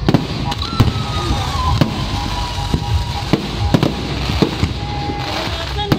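Display fireworks firing in a rapid, irregular string of about a dozen sharp bangs as aerial shells launch and burst, over a continuous crackling rumble.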